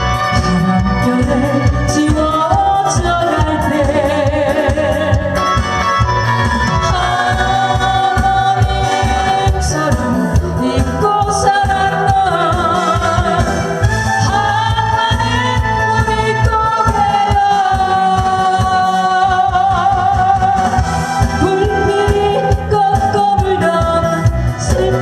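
A singer performing a Korean trot song, long held and sliding vocal notes over loud accompaniment with a steady beat.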